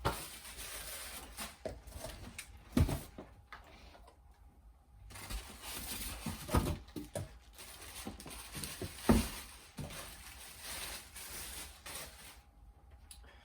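Packaging rustling and crinkling in two spells, with a short pause about four seconds in. A few hard knocks come as the vacuum's parts are handled and set down.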